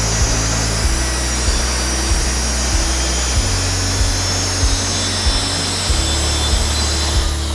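Festool track saw running through a cut under background music with a steady beat; near the end the saw's whine stops and falls in pitch as the blade winds down.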